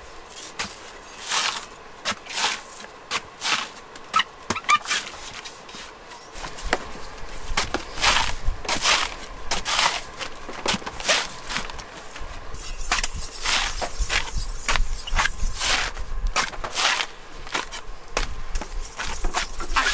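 Young green coconuts being pared against a fixed upright metal blade: a run of short, irregular cutting and scraping strokes through the husk, roughly one or two a second.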